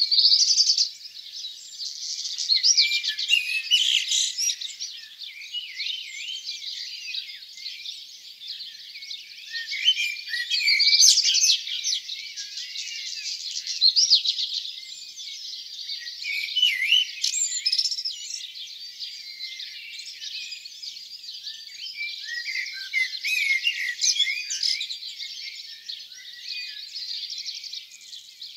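Dawn chorus: many songbirds singing at once, a dense weave of overlapping chirps, whistles and trills, with louder phrases from nearer birds coming and going.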